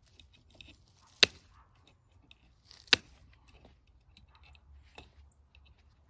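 Wire cutters snipping through the steel strands of 4x4 woven wire fencing: sharp snaps about a second in and near three seconds, and a lighter one near five seconds, with faint rustling of wire between them.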